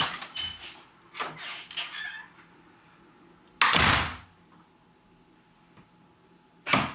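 Handling of a door's lever handle: a few soft knocks and rattles, then one louder short rush of noise just past the middle.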